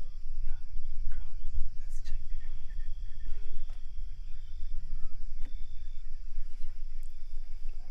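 Bush ambience: steady high insect chirring over a low rumble, with a thin high tone in the middle and a few short, faint animal or bird calls.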